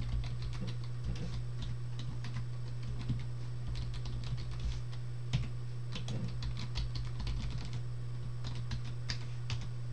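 Computer keyboard being typed on in short irregular runs of key clicks, entering login credentials, over a steady low hum.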